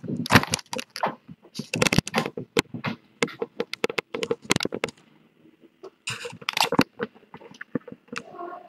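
A dense run of quick clicks, taps and scratching close to the microphone, pausing briefly about five seconds in and starting again soon after.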